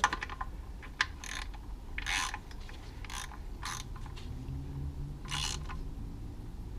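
Hand socket ratchet clicking in several short bursts as the oil pan bolts are snugged down by hand. The pan has just been resealed with silicone sealant in place of a gasket.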